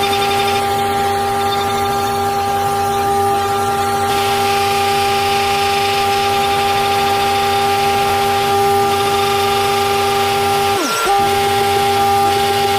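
CNC machine running with a steady multi-tone whine over a mechanical hiss. Near the end the pitch briefly dips sharply and recovers.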